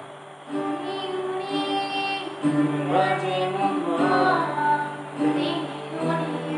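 Acoustic guitar playing chords while a young woman sings, with the guitarist singing along.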